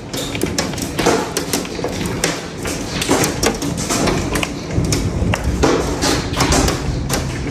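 Hail pelting the house and its window glass: a dense, irregular stream of taps and thuds.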